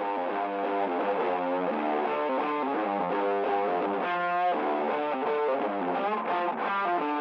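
Background music with a plucked melody of short pitched notes.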